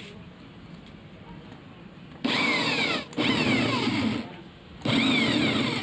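Handheld electric drill boring into a palochina pine board in three runs of about a second each, its whine falling in pitch during each run.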